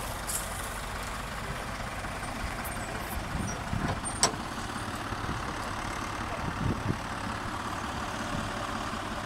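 Heavy diesel engines of a lorry and a tractor idling steadily, with a brief high hiss just after the start and a single sharp click about four seconds in.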